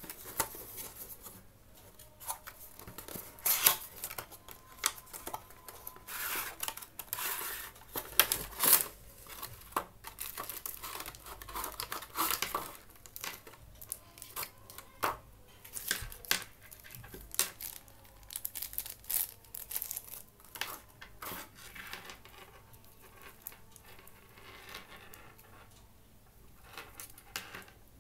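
Cardboard box and clear plastic tray of a pair of earphones handled and opened by hand: irregular rustling, scraping and crinkling of card and plastic with scattered sharper crackles, quieter toward the end.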